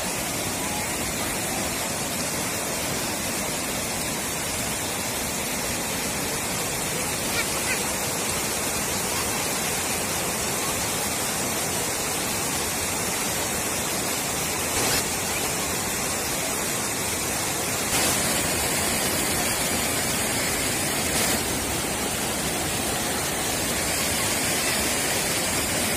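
Floodwater rushing over a low concrete causeway: a steady, loud rush of water.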